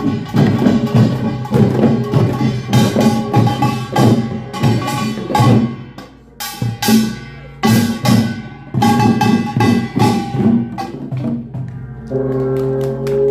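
Korean pungmul percussion ensemble playing: rapid clanging strikes of small gongs (kkwaenggwari) over drums, thinning briefly about six seconds in before picking up again. Near the end a steady ringing tone is held under the beats.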